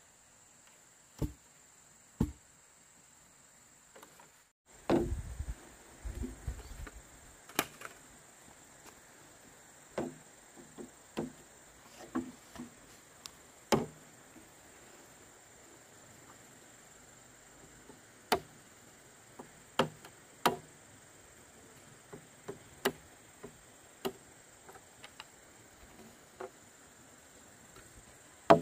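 Irregular sharp knocks or chopping strikes, a dozen or so at uneven intervals, with the loudest right at the end. A cluster of dull low thumps comes about five seconds in, over a faint steady high-pitched hum.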